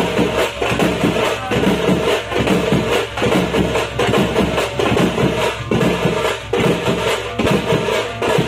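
A Tamil thappattai (parai) frame-drum ensemble with large stick-beaten bass drums plays a fast, driving rhythm of dense, evenly repeating strokes. The deep booming of the bass drums comes in right at the start, under the sharp crack of the frame drums.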